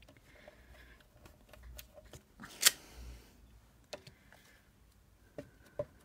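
Paper and stamping supplies being handled on a craft table: rustling with small clicks and one sharp click a little before halfway, then a run of quick light knocks, about four a second, near the end.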